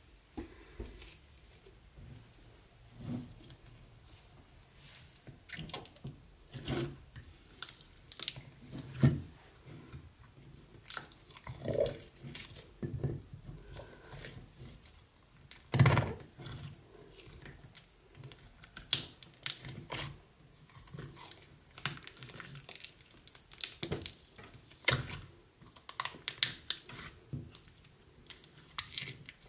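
Sticky slime being poked and pressed by fingers, giving irregular wet clicks and pops, one louder pop about sixteen seconds in.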